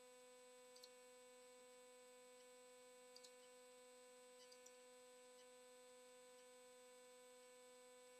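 Near silence: a faint steady electrical hum, with a few faint clicks scattered through it.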